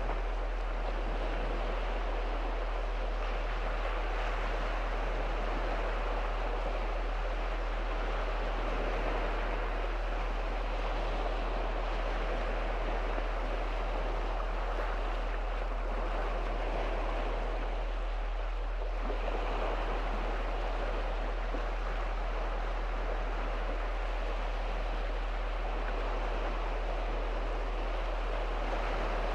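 Small waves breaking and washing onto a shallow sandy sea shore, a steady continuous surf.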